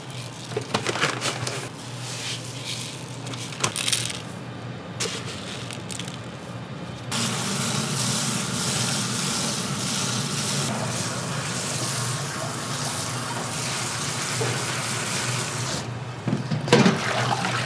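Water running steadily from a kitchen tap, starting about seven seconds in after some irregular clatter and shut off near the end.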